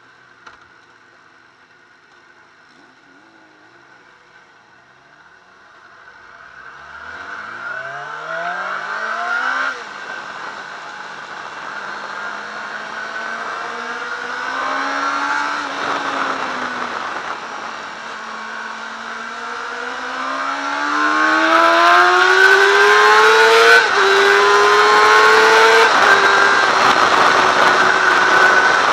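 Yamaha R6's inline-four engine at a low idle, then pulling away about seven seconds in and accelerating hard, the pitch climbing in each gear and dropping at each upshift, about ten and sixteen seconds in and twice more near the end. From about twenty seconds it is much louder, with wind rush over the onboard camera.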